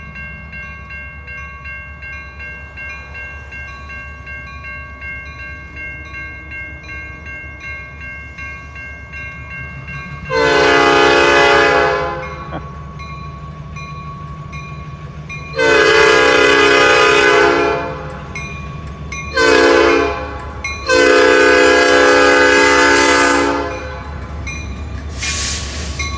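Diesel locomotive air horn blowing the grade-crossing signal, long, long, short, long, as the SD40-2 locomotive approaches, over the rumble of its engine. A crossing bell rings steadily underneath.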